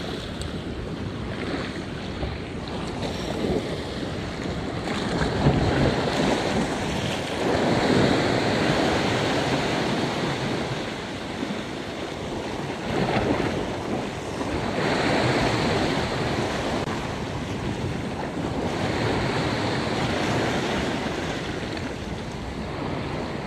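Ocean surf washing against a rock ledge, swelling and easing in surges every few seconds, with wind buffeting the microphone.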